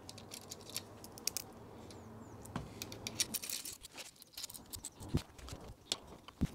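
Faint, scattered small clicks and taps of hands and metal hardware: bolts and washers being fitted to fix an extender bar onto a folding bike's rear rack.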